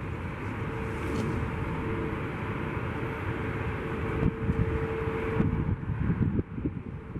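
Boeing 757 jet engines running with a steady rushing noise and a single held whine, heard over wind buffeting the microphone.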